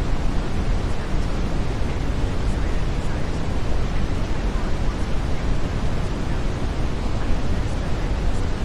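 Steady brown noise: an even, unbroken hiss that is heaviest in the low end and softer in the highs.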